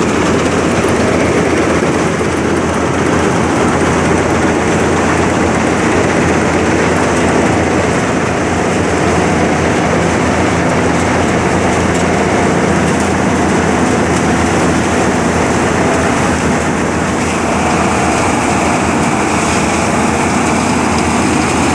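Swaraj 8100 combine harvester with an SMS straw-chopping attachment running under load while harvesting, a loud, steady mechanical noise of engine and threshing machinery that holds even throughout.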